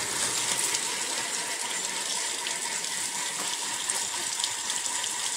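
Water spraying from a garden hose and splashing onto the seat and floor of a truck cab, a steady hiss of running and splashing water.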